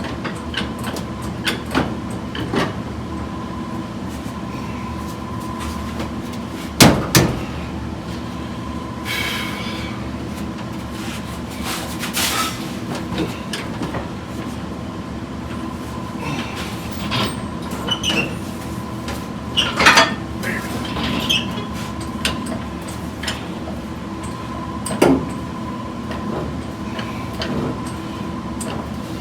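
Scattered metallic knocks, clanks and scrapes over a steady hum, the loudest knocks about seven and twenty seconds in: a steel frame rail being jacked up and worked into place against a car's unibody frame.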